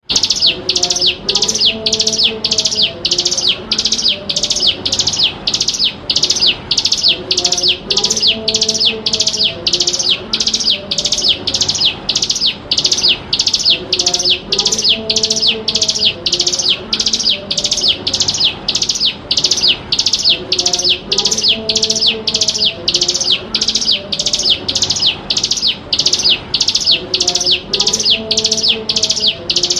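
Ciblek gunung, a prinia, calling in a fast, unbroken series of short, sharp, high notes, about two a second, each sweeping downward. It is a lure call used to train young birds.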